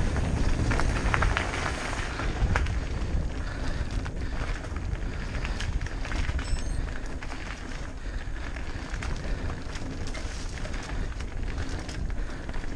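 Mountain bike ridden fast down a dirt singletrack: tyres rolling over dirt, with the bike rattling and clicking over bumps, under a heavy rumble of wind on the microphone.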